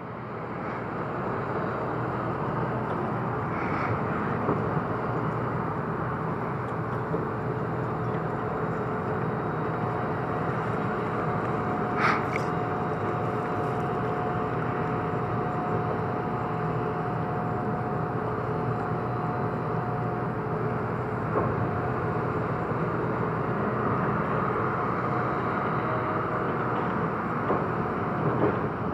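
Diesel machinery on a river dredging barge running steadily in the distance, most likely the hydraulic excavator's engine, with a thin steady whine over the low rumble. The sound fades in over the first second, and a brief high squeak comes about twelve seconds in.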